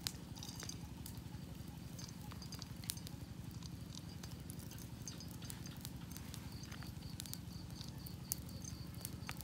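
Wood fire crackling, with scattered sharp pops over a low steady rumble; a faint run of rapid high pips comes in the second half.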